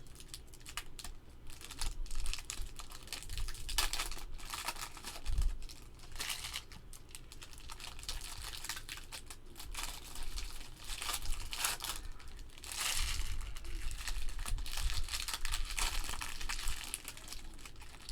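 Trading card packaging crinkling and tearing as it is opened by hand, in irregular bursts of rustling.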